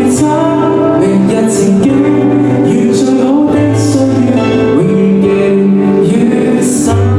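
Live band music: sustained chords with guitar and singing voices, held at a steady loud level throughout.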